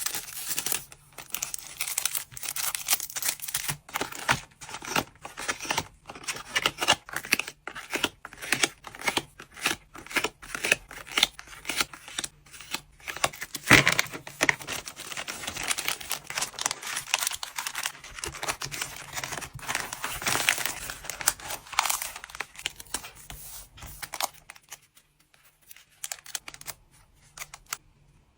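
Packing materials handled close up: rapid crinkling and tearing of plastic and paper wrapping, with quick crackles and one sharper snap about halfway through. The handling thins out in the last few seconds.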